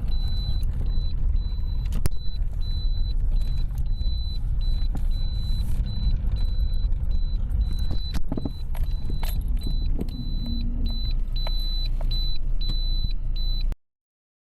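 Lada Priora driving over small potholes: steady road rumble with sharp knocks from the front end, one about two seconds in and a few more around eight seconds. The owner traces the knock to the steering rack, most likely a worn rack bushing short of grease. The sound cuts off abruptly near the end.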